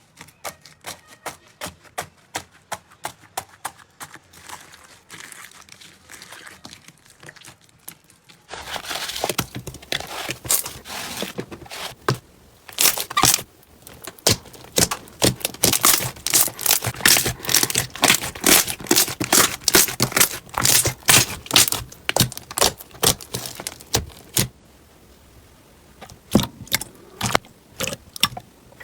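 Slime being squeezed and poked by hand: rapid crackling and popping clicks. The clicking is faint and sparse at first, then becomes louder and denser about eight seconds in. It eases off briefly near the end, then picks up again.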